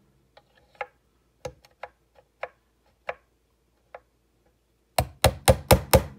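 A small hammer tapping the end of a brad-point drill bit set through a guitar body's neck-screw hole, marking the screw centre on the neck. Faint scattered ticks come first, then about six quick, sharp strikes near the end.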